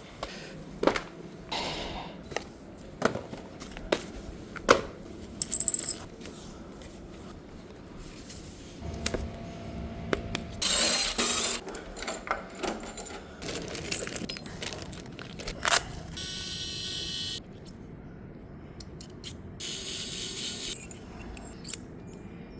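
Tedee smart lock and KESO lock cylinder being fitted: a string of sharp metallic clicks, clinks and scrapes as the lock parts are handled. About sixteen seconds in, a small electric motor whirs steadily for about a second and a half.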